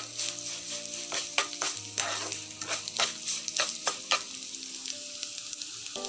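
A utensil stirring and scraping sabudana and sugar around a nonstick frying pan, over a steady sizzle as the sugar melts into syrup in ghee. The scrapes come about two or three a second and stop about four seconds in, leaving the sizzle.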